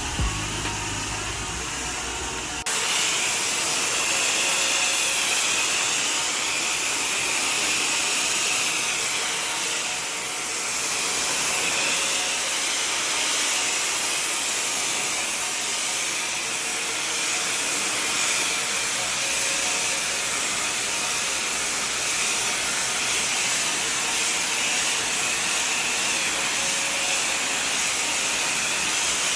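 Pressure washer spraying water onto a hard surface: a steady, loud hiss that changes abruptly about three seconds in, then carries on evenly.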